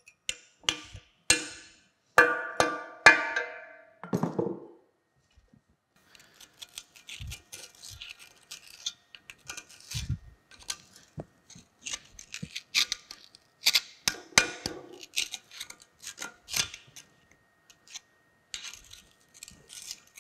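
Eight or so ringing metal-on-metal hammer blows on the rusted cast-iron bearing housing of a mule-powered cane mill over the first four to five seconds. Then light, irregular scraping and clicking as rust is dug out of a bearing socket with a pointed hand tool.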